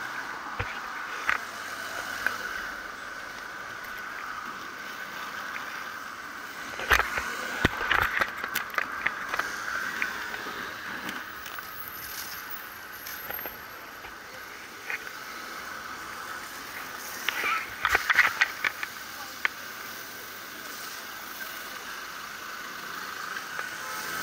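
Ride noise from a camera mounted on a moving bicycle in city traffic: a steady road and tyre hiss, with two clusters of sharp rattles and knocks from bumps, about seven seconds in and again about seventeen seconds in.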